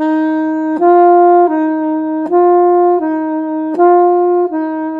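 Alto saxophone playing a slow legato back-and-forth between C and the D above it, across the octave key, three times over. Each D comes in a little louder than the C around it: the very slight unwanted accent that the left thumb causes when it swings from below onto the octave key instead of resting ready on it.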